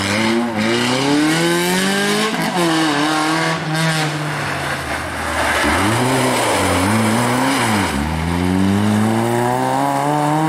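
Two rally car engines in turn at a hairpin. A Renault Twingo accelerates away with rising revs and a couple of upshifts, then a Citroën Saxo comes in with the revs falling and blipped downshifts, and accelerates hard out of the bend near the end.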